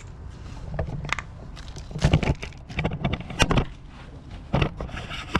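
Irregular clicks and clunks of hand tools and small metal parts being handled during work on a lawnmower carburetor, with a few louder knocks in the middle.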